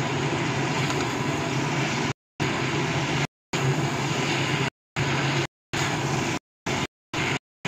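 Steady hissing noise with a low hum under it while cauliflower and potatoes are stirred in an iron kadai. The sound cuts to dead silence suddenly several times, in gaps of a fraction of a second each.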